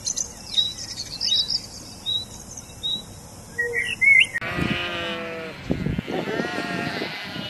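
A house sparrow chirping in short, high, repeated notes. About four seconds in, a flock of sheep starts bleating, with several overlapping bleats, the first and loudest of them right at the change.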